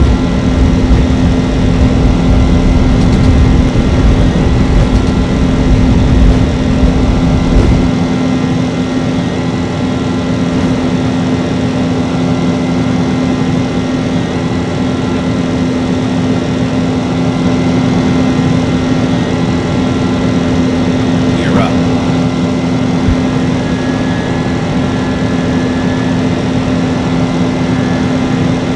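Jet airliner engines running with a steady droning tone. A heavy low rumble under it drops away abruptly about eight seconds in, while the drone carries on.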